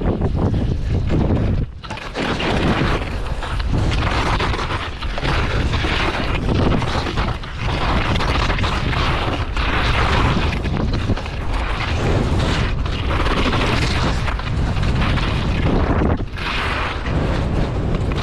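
Wind buffeting the microphone of a camera worn while skiing downhill, a steady low rumble, with the skis hissing and scraping over the snow and swelling and fading from turn to turn.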